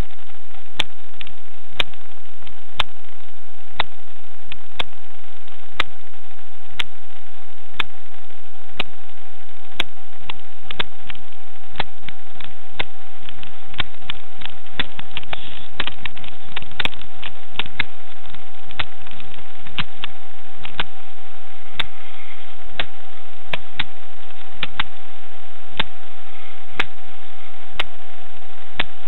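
Steady loud hiss with a constant high whine from a camera watch's built-in microphone, broken by repeated sharp clicks and knocks, about one a second at first and coming faster in the middle.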